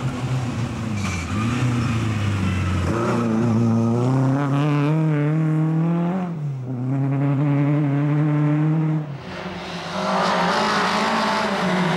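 Lada rally cars' four-cylinder engines at full throttle on gravel. The engine note climbs, drops at an upshift about six seconds in and climbs again, then breaks off about nine seconds in. A second car's engine follows, with a hiss of gravel under the tyres.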